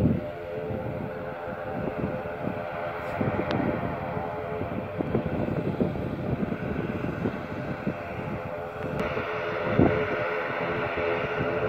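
Distant ATR 72-600 twin turboprop engines and propellers giving a steady drone of several held tones at takeoff power during the takeoff roll. The sound grows louder and brighter about nine seconds in, with low rumbling wind noise on the microphone underneath.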